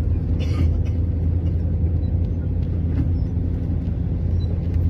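Steady low rumble of a moving bus's engine and road noise heard from inside the cabin, with a brief hiss about half a second in.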